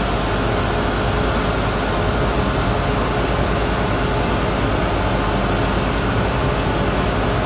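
Steady, noisy outdoor mechanical din: an even rushing noise with a low hum and a few faint steady tones running through it, unchanging throughout.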